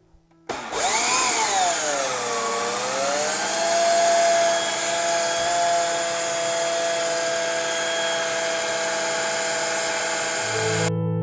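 Electric atta kneader's motor running, kneading maida flour into dough. After it switches on, its whine dips in pitch and then settles into a steady hum, and it cuts off suddenly near the end.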